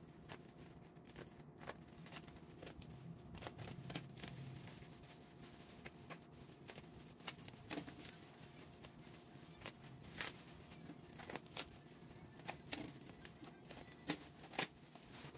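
Bubble wrap crinkling and crackling as it is handled and pulled open, with irregular sharp crackles; the loudest come in a few clusters in the second half.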